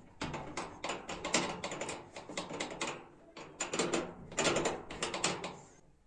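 Dice-faced metal rings of a homemade bolt-and-nut combination door latch being turned by hand: rapid metallic clicking and rattling in several runs, with a short pause about three seconds in.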